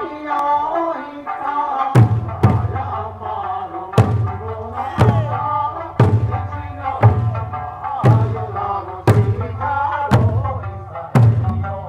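Eisa drumming: large barrel drums (ōdaiko) and hand-held paranku drums struck together in unison, hitting roughly once a second and sometimes twice in quick succession. Underneath is a sung Okinawan Eisa song.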